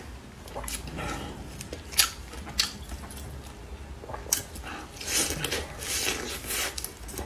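Close-miked eating sounds: a home-made shredded potato and carrot pancake being handled, bitten and chewed. A few sharp mouth clicks come first, then a denser run of chewing noise from about five seconds in.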